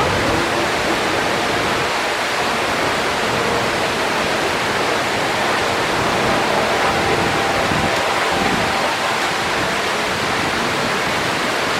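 Steady rush of water from the artificial waterfalls of the Mirage's volcano attraction, pouring into its lagoon.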